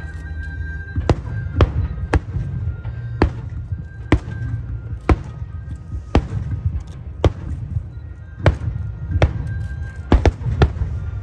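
Fireworks shells bursting in an irregular string of sharp cracks, about a dozen, with several in quick succession near the end, over music.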